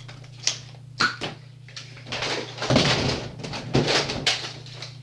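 A few sharp clicks and knocks, then about two seconds of clattering and scuffling with several louder knocks in it.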